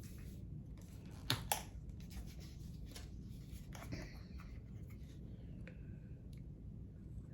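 Two sharp light clicks about a second and a half in, and a few fainter taps, from small objects being handled on a work table.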